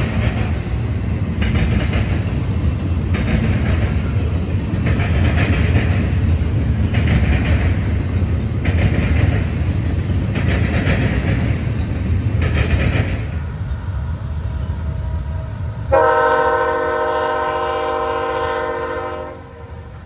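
Freight train rolling past, a heavy rumble with its wheels clacking in a regular beat, about once every second and a half to two seconds, that fades out. Near the end a locomotive air horn sounds one long blast of about three seconds and cuts off.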